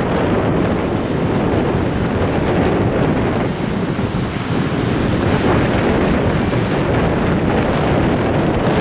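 Ocean surf breaking and washing on the beach, with heavy wind buffeting the microphone.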